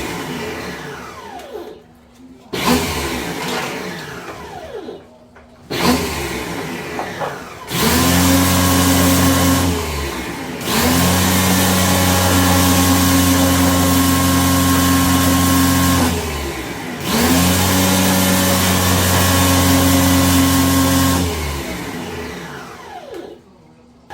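A power tool's electric motor is run in repeated bursts: three short spurts, then long steady runs of several seconds. Each time the trigger is let go, the motor winds down with a falling whine.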